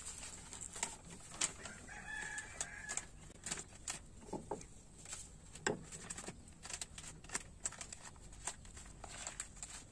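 Paper crinkling and rustling in quick, irregular crackles as a small paper flag is folded by hand. Chickens cluck a few times in the background.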